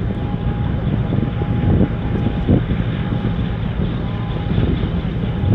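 Wind buffeting the microphone in a loud, gusty low rumble, over the faint drone of a container ship and its tug working across the harbour.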